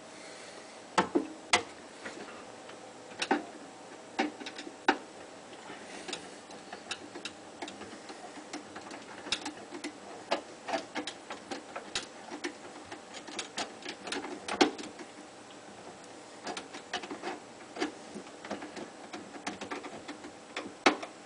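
Irregular clicks and small knocks of a screwdriver and plastic drain-pipe fittings being tightened onto a garbage disposal, a few clicks a second with a few louder knocks about a second in and near the middle.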